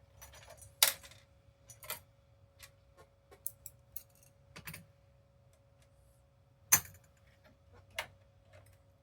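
Scattered clicks and knocks of small hard parts and tools being handled on a workbench during a console repair, the two loudest about a second in and near seven seconds, over a faint steady hum.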